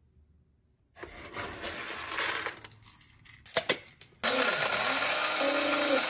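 Electric coffee grinder grinding coffee, switched on about four seconds in and running steadily. Before it starts there is rattling and two sharp clicks.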